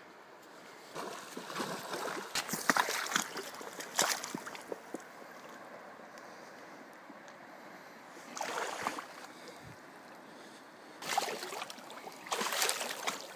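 Splashing in shallow river water around a landed huchen (Danube salmon), in bursts: several over the first few seconds, a short one about eight seconds in, and more near the end, over a steady low rush of flowing river water.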